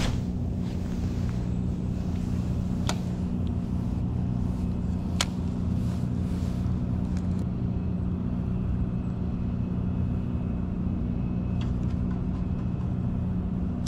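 A steady low machine drone made of several constant tones, with a few sharp clicks in the first half.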